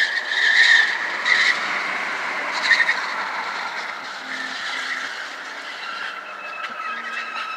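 Volvo's tyres squealing on a smooth indoor floor as the car accelerates hard and takes a tight turn, heard from inside the cabin. A loud high-pitched squeal for the first second or so, short sharp squeals about one and three seconds in, then a fainter, lower squeal that slowly drops in pitch.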